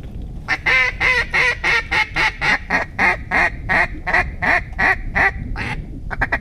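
Duck call blown in a long run of loud quacks, about three a second, ending in a short, quicker run of notes near the end: calling to ducks working the decoys.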